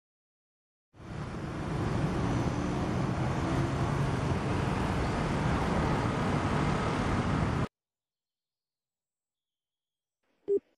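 Motor scooter riding along a road: steady engine and road noise that fades in about a second in and cuts off suddenly. Near the end comes a single short telephone beep as a call is placed.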